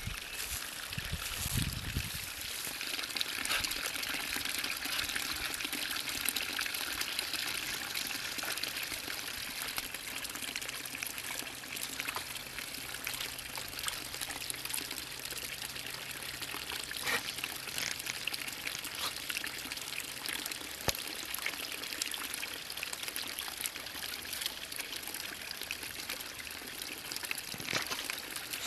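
Spring water pouring from a spout in a stone wall into a shallow stone basin: a steady trickling splash. A few low thumps in the first two seconds.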